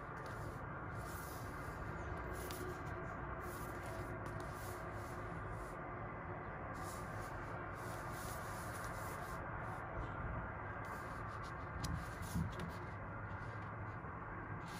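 Soft rustling of a paperback book being handled, its pages thumbed and opened, over a steady low hum, with a brief thump about twelve seconds in.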